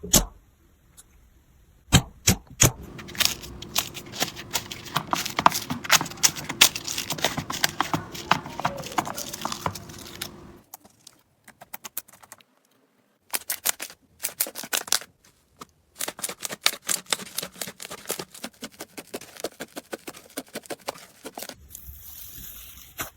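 Slime being squeezed and pressed by hand, giving rapid crackling and popping clicks, with a brief pause about eleven seconds in.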